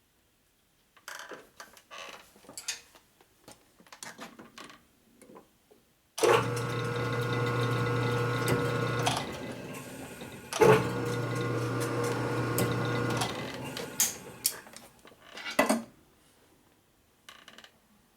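Small metal parts and tools clinking and knocking, then a small electric power tool switched on twice, each time running a steady hum for about three seconds before winding down.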